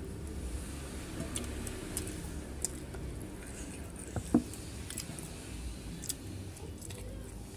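Quiet eating sounds close to the microphone: soft chewing with scattered small clicks, and one sharper click about four seconds in.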